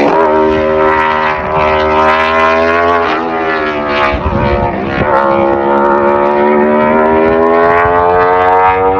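Racing car engine running hard at high revs up a hillclimb. Its pitch dips with a short break about four seconds in, then rises slowly as it pulls again.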